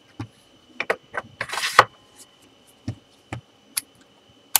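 Handling noise from a Fluke 87V multimeter on a rubber bench mat: scattered clicks and knocks as a screwdriver works on its back case and the meter is turned over, with a short rustling rush about one and a half seconds in.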